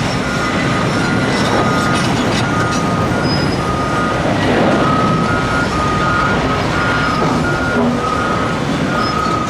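Reversing alarms on bulldozers beeping over and over, two alarms at slightly different pitches overlapping, over a steady loud rumble of the heavy machinery.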